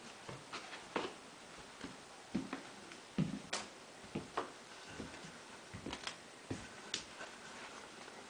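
Footsteps and small knocks in a quiet room: irregular clicks and soft thumps, roughly one or two a second.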